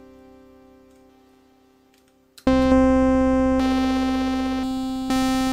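Teenage Engineering OP-1 synthesizer playing a bell-like patch rich in overtones. A held note fades almost to nothing, then about halfway through a loud new note is struck and slowly decays, and the tone shifts a few more times near the end.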